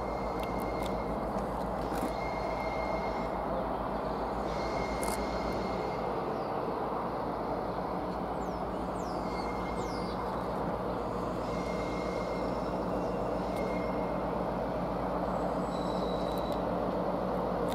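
Class 60 diesel-electric locomotive's eight-cylinder Mirrlees engine running under load as it hauls a loaded stone train, growing slowly louder as it approaches. Short high squeals recur every second or two from the wheels on the curving track.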